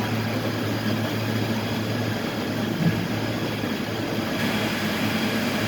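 Heavy machinery running steadily with a constant low hum over broad mechanical noise, and a single brief knock about three seconds in.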